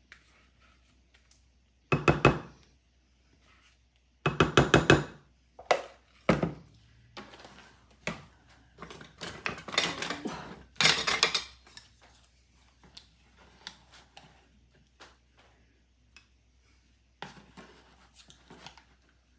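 Utensils clattering and scraping against dishes and a baking pan as cookie dough is put on, in several short bursts of rapid knocks with quiet gaps between.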